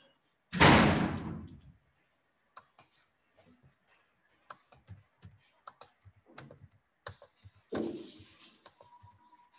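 Computer keyboard typing and clicking, in scattered taps, as the class activity is set up in Edmodo. A loud thud about half a second in fades over about a second, and a second thud comes near the end.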